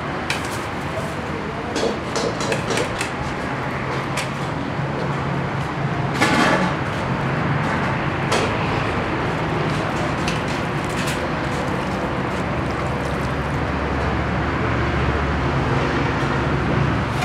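Steady road-traffic noise, with a heavier vehicle's low rumble building in the last few seconds. Plastic bag rustling and small clicks in the first few seconds as green chillies are tipped out, and a brief louder noise about six seconds in.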